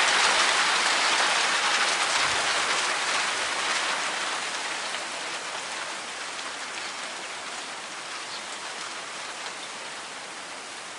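Falling snow pellets, something like hail, pattering on surfaces as a steady hiss of many fine ticks that gradually grows fainter.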